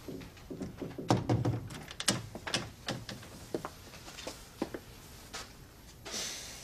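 Footsteps and knocks on a hard floor with the heavier thud of wooden furniture being handled, followed near the end by a short scrape as a wooden chair is pulled out from a table.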